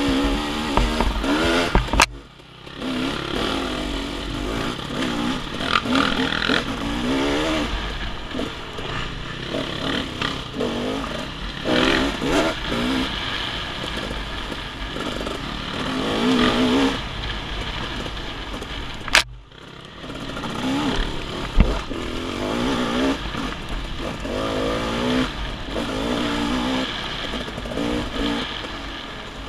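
Off-road dirt bike engine revving up and falling back again and again as it rides a woods trail. The sound cuts out abruptly and briefly twice, with a click.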